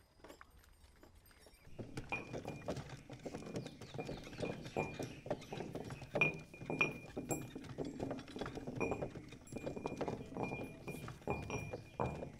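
Bullock cart rolling along a dirt lane: the oxen's hooves clopping and the spoked wooden wheels and cart frame knocking and rattling, starting about two seconds in. A thin high squeak comes and goes over it.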